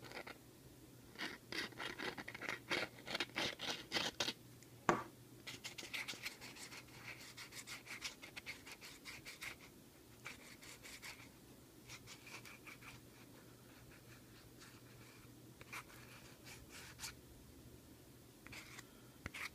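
Scratching and rubbing as a superglue bottle's nozzle is worked over a 3D-printed part, in quick clusters of short strokes that thin out in the second half, with a faint steady fan hum underneath.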